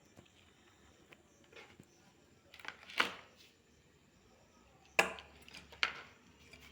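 A few short knocks and clatters of small hard objects over quiet room noise: a cluster about three seconds in, the loudest, then two more single knocks about five and six seconds in.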